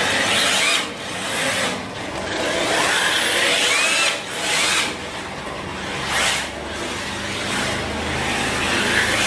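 Electric RC drift car (3Racing Sakura D5 MR) sliding on a tiled floor: hard drift tyres scrubbing and hissing, with the whine of its motor rising and falling. The sound swells and dips several times as the car sweeps past and away.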